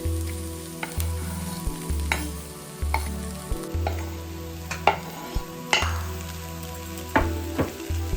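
Food sizzling as it fries in a pan while being stirred, with a utensil clicking and knocking against the pan every second or so.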